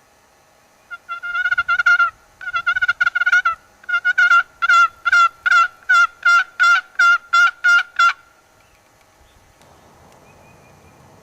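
Turkey yelps from a turkey call: three runs of sharp, pitched notes, the last and longest about three notes a second. A faint rustle follows near the end.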